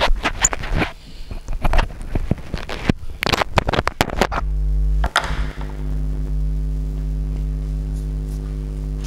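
A quick run of irregular knocks and clicks for about four seconds, then a steady low hum that holds on.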